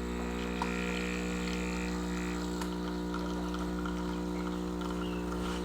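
Mattinata espresso machine's pump running steadily with a low, even hum while it pulls a double shot of espresso.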